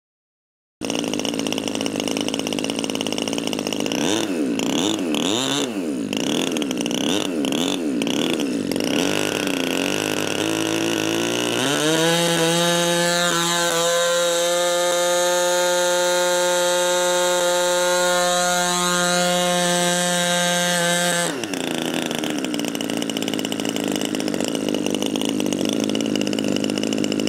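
9cc NGH gasoline engine of a large radio-controlled Fairchild PT-19 model running. It idles with a few quick revs up and down, is held at high revs for about nine seconds, then drops sharply back to idle.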